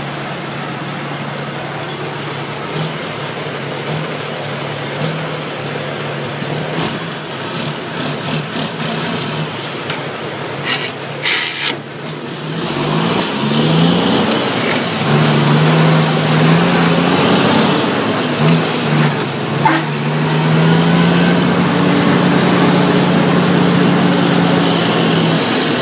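International truck's L10 diesel engine heard from inside the cab, running steadily at low revs with a few clicks around ten seconds in. From about halfway it gets louder, the engine pitch rising and dropping several times as the truck pulls away and works up through the gears, then holding steady.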